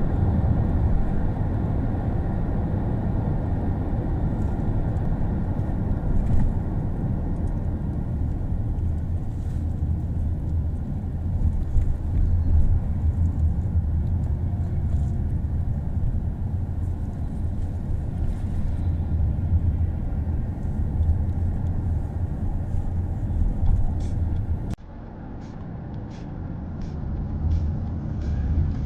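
Steady low road and engine rumble inside a moving car. About 25 seconds in it cuts off suddenly to a quieter stretch with a run of light ticks, about two a second.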